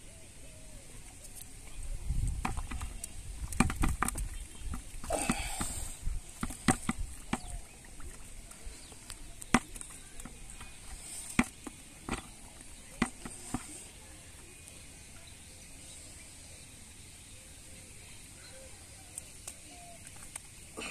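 Woven bamboo fish trap being handled, knocked and shaken over a plastic bucket to tip fish out: a low rumble at first, then a series of separate sharp knocks and clatters that stop a few seconds after the middle.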